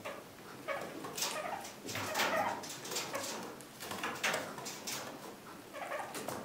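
Kakariki parakeets calling with short chattering calls in irregular bursts, about one every half second to a second.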